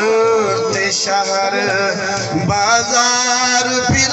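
A man singing a Saraiki Sufi kalam into a microphone, in long held notes with a wavering, ornamented melodic line.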